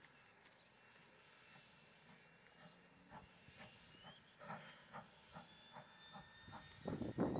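WW class 4-6-4 tank steam locomotive approaching, its exhaust chuffs faint at first, coming through about two a second from around three seconds in, then turning much louder near the end.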